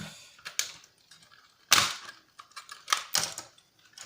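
Brittle plastic casing of an H8C quadcopter drone cracking and snapping as it is pried apart with pliers: a few sharp cracks with small clicks between, the loudest a little before halfway through.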